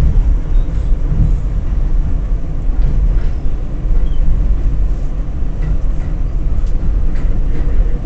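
R46 subway car in motion, heard from inside: a loud, steady low rumble of wheels on rail, with faint scattered clicks.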